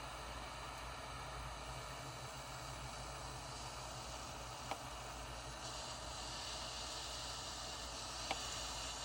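Torch flame hissing steadily while heating a battery cable terminal for soldering, the hiss getting a little brighter about halfway through, with two light clicks.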